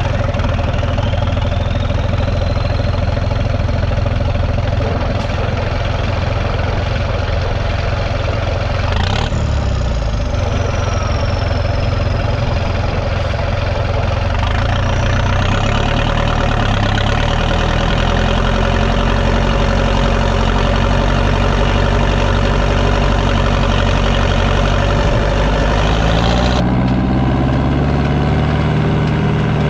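Fendt Favorit 510 C tractor's six-cylinder turbo diesel running steadily just after starting, with a turbocharger whistle rising over the first few seconds. A second high whistle falls and then rises again around the middle, and the engine note shifts lower down near the end as the upper hiss drops out abruptly.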